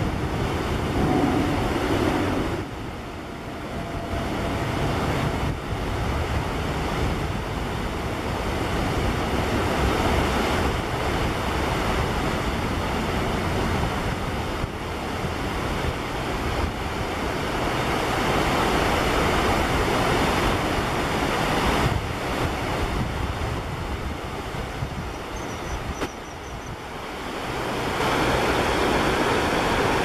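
Wind rushing over the microphone: a loud, steady hiss and rumble that swells and eases, dipping briefly a few seconds in and again near the end.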